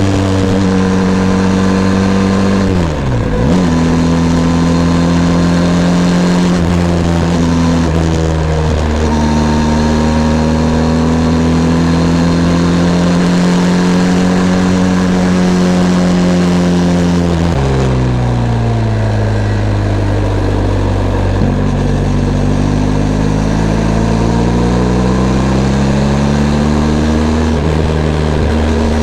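Benelli TRK 502 X's 500 cc parallel-twin engine running under way, with revs rising and falling. Revs dip briefly and pick up again about three seconds in, drop suddenly about two-thirds of the way through, then climb steadily for several seconds.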